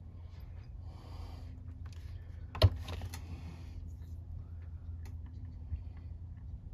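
A Saginaw power steering pump and hand tools being handled during disassembly: scattered small clicks and brief scrapes, with one sharp knock a little over two and a half seconds in, over a steady low hum.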